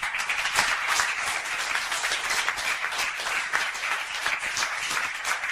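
Audience applauding: many hands clapping together, starting suddenly and going on steadily.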